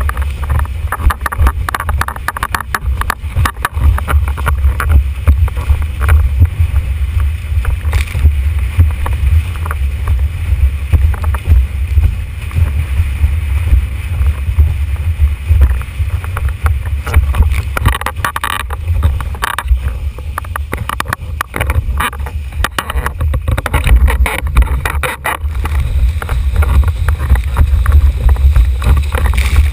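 Wind buffeting the microphone of a boom-mounted action camera on a planing formula windsurfer: a heavy, steady rumble with rushing water and spray crackling against the camera housing.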